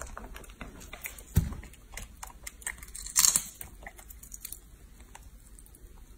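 Young macaque eating a boiled egg: small, irregular clicks and crackles of chewing and of eggshell being picked and broken. There is a dull thump about a second and a half in, and a louder crackle about halfway through.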